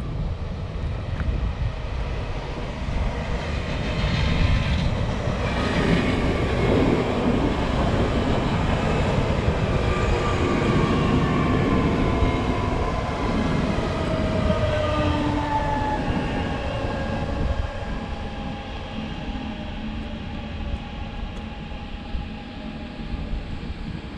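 Two coupled electric multiple units passing at speed. Running noise of wheels on rails swells and then fades as the train draws away, with a motor whine that falls in pitch as it goes by.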